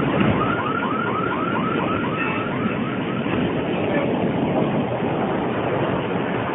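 An electronic siren or alarm warbling fast, about five arched chirps a second, over a steady rumbling noise. The warble fades out about three seconds in, and the rumble carries on.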